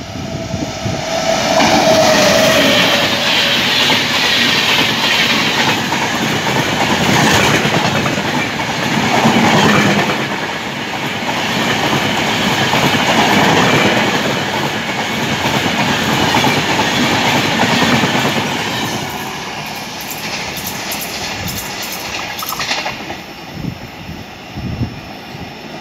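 Express train of LHB passenger coaches passing at speed behind an electric locomotive: a loud, steady rush of steel wheels on rail with clickety-clack over the rail joints, fading over the last several seconds as the train draws away.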